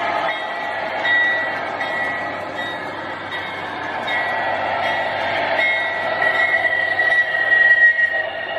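O gauge model Amfleet passenger cars' metal wheels rolling along curved three-rail track, a steady rattling rumble with short high squeaks recurring a little more than once a second.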